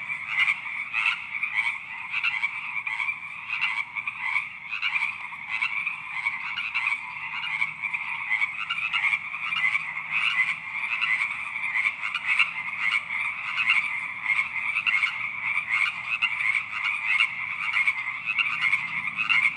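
A chorus of toads and frogs croaking, many calls overlapping in a dense, continuous pulsing din.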